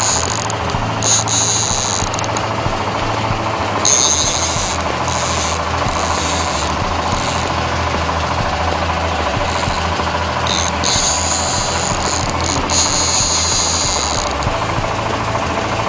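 A boat's engine running steadily with a low hum, while bursts of high hissing come and go every few seconds.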